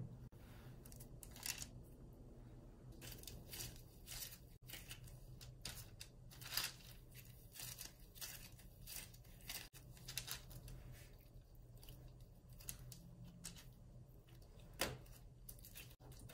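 Faint, irregular rustles and soft crackles of latex-gloved hands pulling apart and rolling sticky, chunky cookie dough and setting the portions down on parchment-lined baking trays, over a low steady hum.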